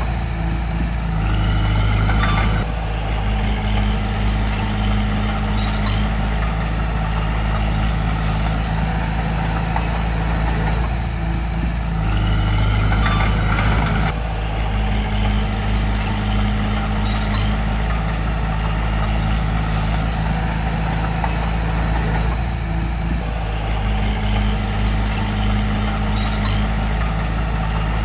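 Bulldozer's diesel engine running steadily as the machine works, its note shifting in a cycle that repeats about every eleven seconds, with a few sharp metallic clicks over it.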